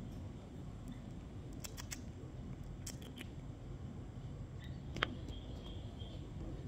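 Outdoor background noise, a steady low rumble, with a few faint clicks scattered through it and one sharper click about five seconds in.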